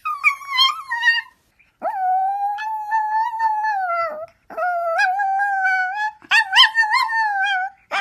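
A Chihuahua howling and whining in four long, wavering, high-pitched calls with short breaks between them, the first sliding down in pitch, as it 'talks' back.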